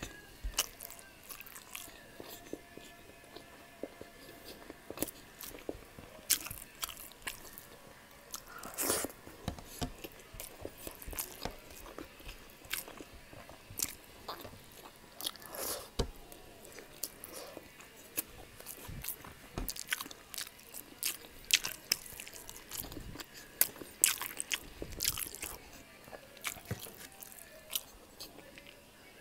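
A person chewing mouthfuls of rice and pork liver steak, with irregular clicks and smacks from the mouth throughout.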